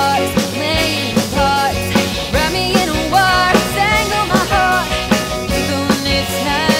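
Rock song played by a full band: a drum kit keeping a steady beat under a lead melody that slides up and down in pitch.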